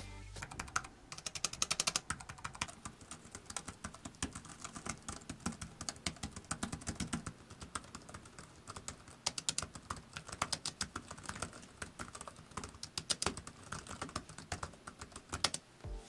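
Fast typing on a Satechi X1 Slim Bluetooth keyboard's low-profile keys: a quiet, steady stream of quick key clicks, starting about a second in.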